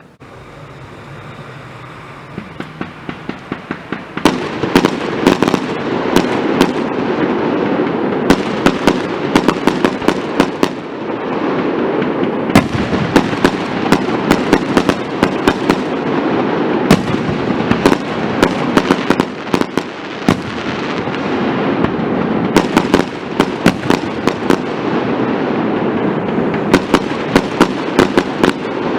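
Fireworks going off in a dense barrage: many sharp bangs over continuous crackling, swelling to full strength about four seconds in, with a couple of brief lulls.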